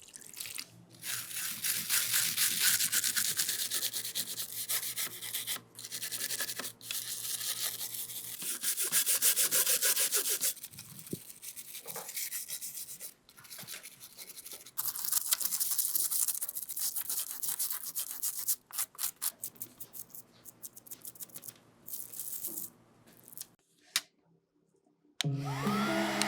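Rapid repeated rubbing strokes on a hard surface, a brush or abrasive scrubbing back and forth in spells with short pauses between them.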